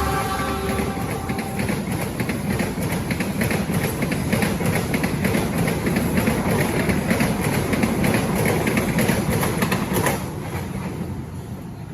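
A train's cars rolling past at speed, the wheels clattering rapidly over the rail joints with a steady rumble; the clatter ends about ten seconds in and the sound fades away as the train recedes.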